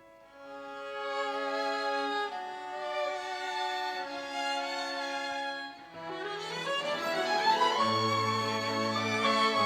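Violin playing a slow instrumental introduction in long held notes, with an upward run of notes about six seconds in and lower sustained notes joining near the end.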